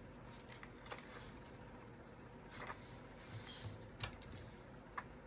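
Faint rustling and a few light clicks from handling paper and a roll of double-sided craft tape.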